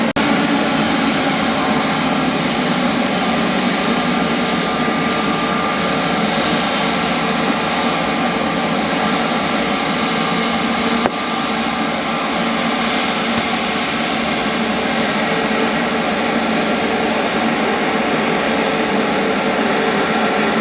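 Jet airliner engines running loud and steady: a broad rush with several held whining tones over it. The sound cuts abruptly to a slightly quieter take about eleven seconds in.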